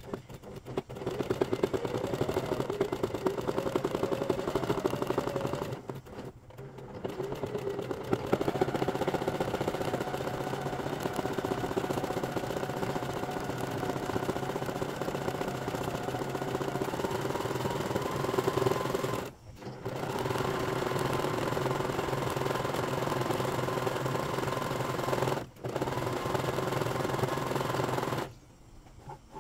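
Domestic sewing machine stitching zigzag embroidery: the motor whirs and the needle rattles rapidly, its pitch shifting as the speed changes. It pauses briefly three times and stops near the end.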